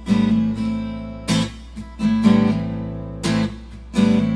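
Acoustic guitar strummed alone, a strong chord stroke about once a second, each chord ringing out and fading before the next.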